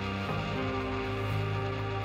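Background music: sustained instrumental chords, with the bass note changing about a quarter of a second in.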